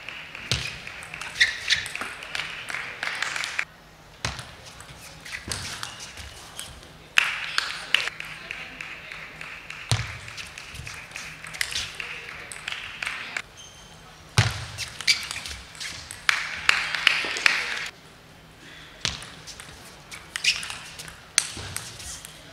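Table tennis rallies: the plastic ball clicking off the rackets and the table in quick back-and-forth exchanges, several points in a row, with voices shouting around the points.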